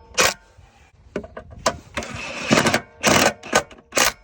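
Work on a snow blower: a string of short, sharp metal clanks and knocks, with a longer rasping scrape in the middle.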